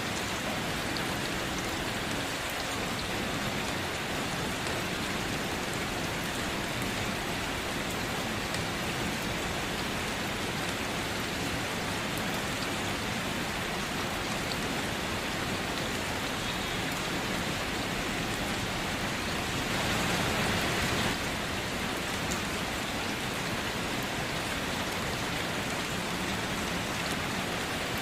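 Steady rain falling, a dense even hiss with scattered drop ticks. About twenty seconds in it swells louder for a second or so, then drops back suddenly.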